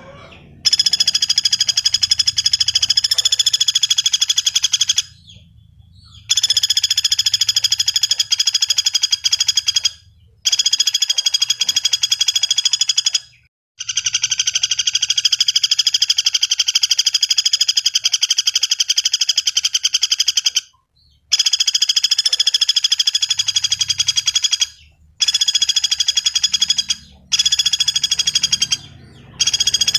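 Pelatuk bawang woodpecker calling in long, fast, rattling trills, one after another with short breaks between them.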